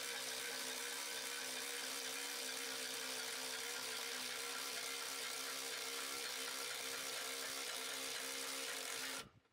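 Steady whir of a running motor, holding one pitch without pulsing, cutting off suddenly near the end.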